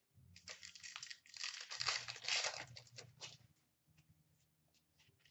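Plastic wrapper of a hockey card pack crinkling and tearing as the pack is ripped open, for about three seconds, then a few faint clicks.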